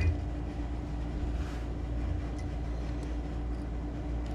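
Steady low hum with a steady mid-pitched tone above it, like running machinery or electrical hum, and a brief faint hiss about a second and a half in.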